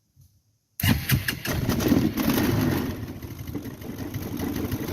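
Arctic Cat 300 ATV's single-cylinder engine cranked on the starter and catching about a second in, revving briefly, then settling into a steady idle. It is starting on a newly replaced starter solenoid.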